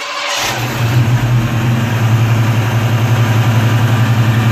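A 1989 Mustang GT's 5.0 L V8 being started right after BBK equal-length headers were fitted. The starter cranks briefly, the engine catches about half a second in, revs up a little, then settles into a steady idle. This is the first start to check the new header flanges for exhaust leaks.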